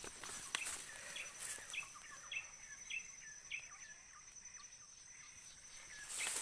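A small bird chirping repeatedly, short upward-hooking calls about every half second for a few seconds, over a steady high-pitched whine.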